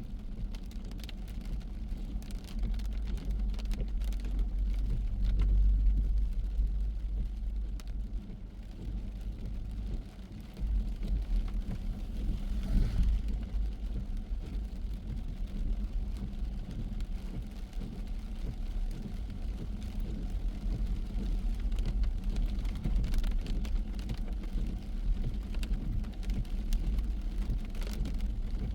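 A car driving in the rain: a steady low road and engine rumble, with scattered light taps of raindrops.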